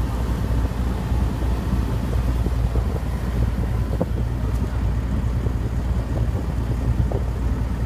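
Diesel engine of a large truck-mounted mobile crane running steadily under load as it hoists a railcar, a low even rumble.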